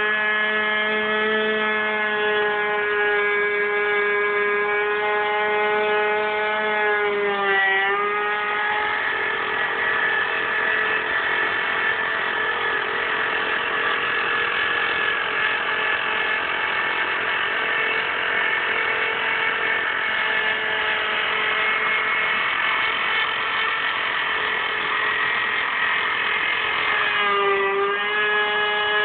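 Router spindle of a homemade CNC machine running at a steady whine while its bit mills a groove around a wooden panel. The pitch dips briefly about eight seconds in and again near the end; in between the whine turns rougher and noisier as the cutter works through the wood.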